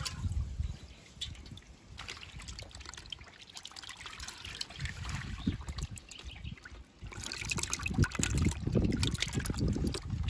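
Live climbing perch thrashing in a pot of water, splashing and sloshing in irregular bursts that get louder about seven seconds in.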